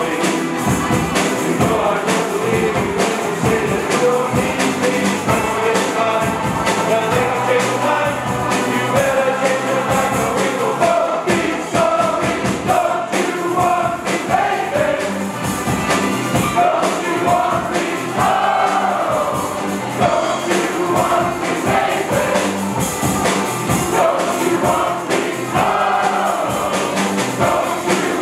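A large group of voices singing a song together to acoustic guitar accompaniment, with a steady beat.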